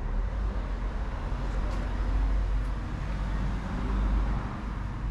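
Steady street traffic noise: a low rumble with a hiss that swells and fades, like vehicles passing.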